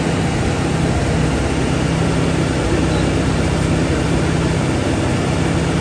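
Ford Raptor's 3.5-litre twin-turbo EcoBoost V6 running steadily at an even engine speed, under suspicion of timing chain rattle, which the owner says is more pronounced when the engine is cold.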